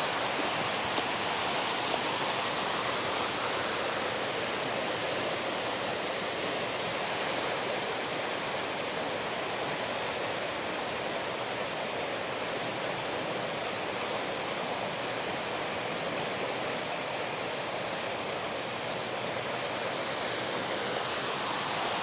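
Swollen flash-flooded river rushing past, a steady, unbroken wash of fast-moving water.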